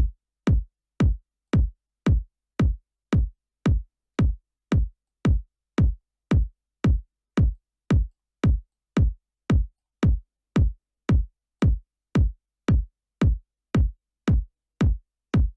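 Soloed electronic house kick drum, a drum-machine kick with a quick downward pitch sweep into a deep thump, repeating steadily about twice a second. It is being run through a compressor to tame peaks that were clipping the master.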